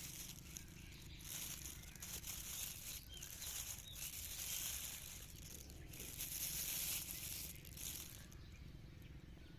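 A bag of chicken meat rustling and crinkling in irregular patches as it is opened. The sound is faint.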